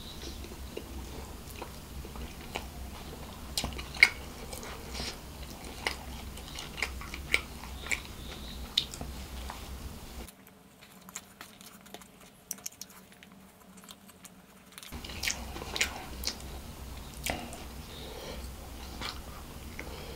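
A person chewing mouthfuls of fried rice close to the microphone, with many short, sharp wet mouth clicks. The low background hum cuts out for about five seconds in the middle.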